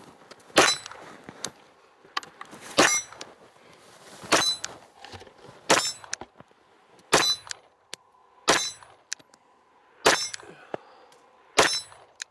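Zev-customised Glock pistol fired eight times at an even pace, about one shot every second and a half; each shot is followed by a short high ring, typical of hits on a steel target.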